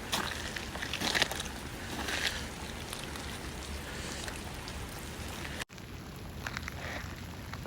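Footsteps crunching a few times on icy, slushy ground over a steady outdoor hiss. The sound drops out for an instant a little before the end and then resumes more quietly.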